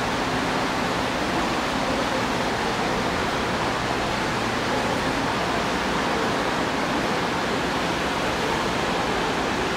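Steady rushing noise with a faint low hum from a Korail electric commuter train standing at a station platform.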